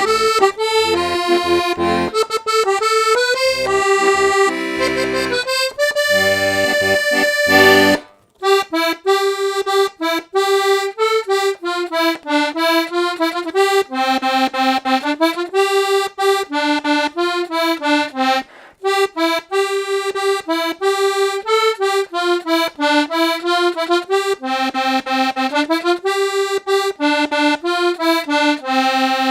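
Parrot Falcon three-row diatonic button accordion in G/C/F, with two sets of treble reeds, playing tunes. For the first eight seconds a melody runs over bass notes and chords and ends on a held chord. After a short pause a new melody is played on the treble buttons alone, with no bass underneath.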